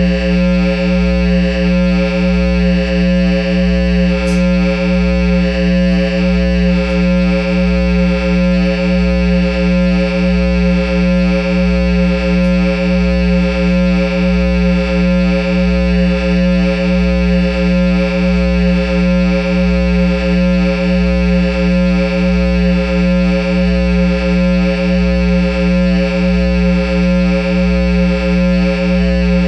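Steady electrical hum and buzz from a Line 6 guitar amplifier head through a Peavey speaker cabinet, with nobody playing: a loud, unchanging low drone with a slow pulse about one and a half times a second.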